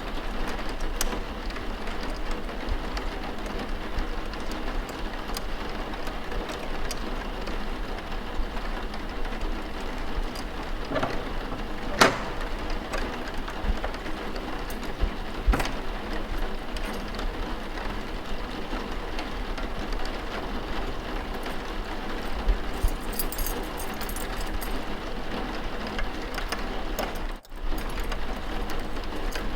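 Steady rain, an even hiss of falling water, with a couple of sharp knocks about twelve and fifteen seconds in and a brief drop-out in the sound near the end.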